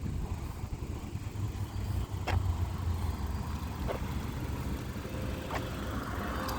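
Steady low rumble of car traffic, with a few faint ticks.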